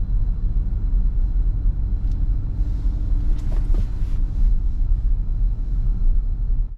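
Steady low rumble of a car's engine and tyres, heard from inside the cabin while driving. A brief rattle comes a little past halfway.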